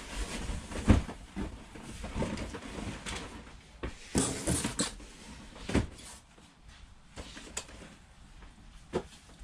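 Items being handled during unboxing: a few knocks and thuds as things are picked up and set down, with a stretch of rustling packaging about four seconds in.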